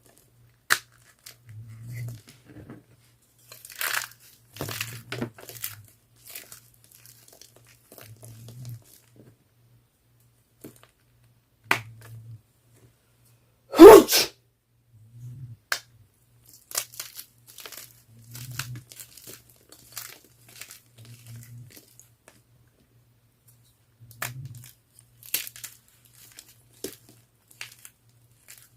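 Blue gym chalk being crushed: scattered crisp crunches and crackles, with one loud crunch about halfway through. A dog's faint low snore pulses about every three seconds underneath.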